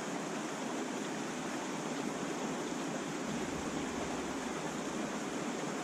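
Mountain creek water rushing over a rocky riffle: a steady, even wash of noise.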